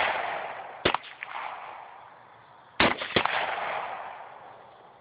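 AR-15 rifle fired in single shots: one shot about a second in, then two more in quick succession near three seconds. Each crack is followed by a rolling echo that fades over about a second.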